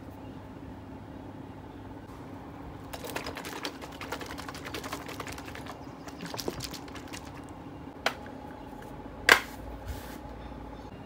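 Rapid crackling and rattling for a few seconds from handling a milk tea cup, then a couple of light clicks and a sharp pop about nine seconds in as a plastic straw is punched through the cup's sealed film lid.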